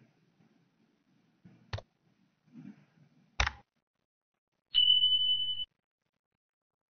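Subscribe-button animation sound effects: two sharp mouse clicks, about two and three and a half seconds in, followed by a steady high beep lasting about a second.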